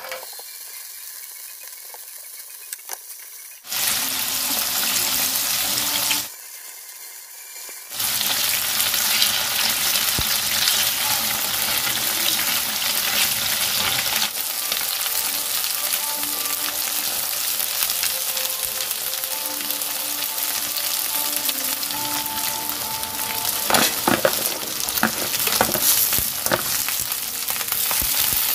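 Tofu cubes sizzling as they fry over high heat in plenty of oil in a nonstick pan. The sizzle is quieter in the first few seconds and again briefly, then steady and loud. Near the end come a few sharp clicks and scrapes as the pieces are stirred with a wooden spatula.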